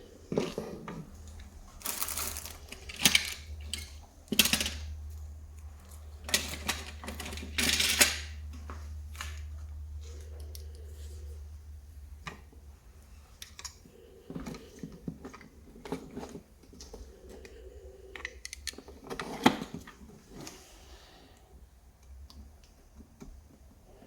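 Irregular small clicks, taps and a few short scrapes from hand work on a wall push-button switch: screwdriver and plastic switch parts being handled while the wires are fastened and the switch is fitted.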